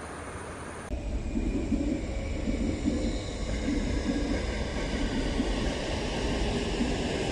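Sotetsu 13000 series electric train passing through the station without stopping. A steady rumble with repeated clatter and faint steady tones comes in abruptly about a second in.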